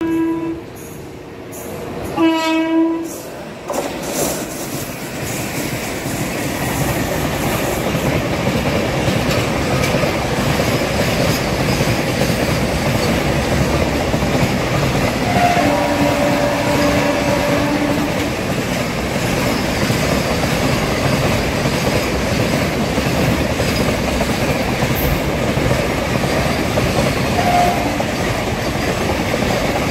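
A container freight train's locomotive sounds short horn blasts in the first few seconds as it approaches. The train then passes at speed close by with a steady, loud rumble and a clickety-clack of the container wagons' wheels over the rails. A horn sounds again for about two seconds midway.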